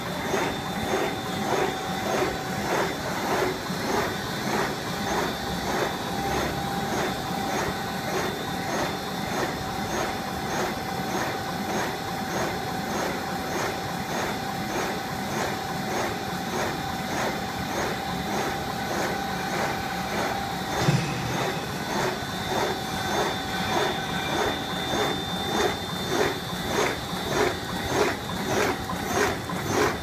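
GUR-iS PSR-900 polyethylene bag-making machine running: a rhythmic clatter that repeats a couple of times a second as it cycles, over a steady motor whine. A single sharper knock comes about two-thirds of the way through.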